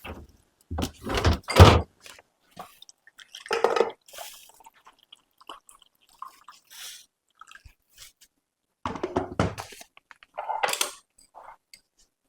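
Kitchen work: scattered knocks and clatter of utensils and dishes in a few short bursts, the loudest about a second in.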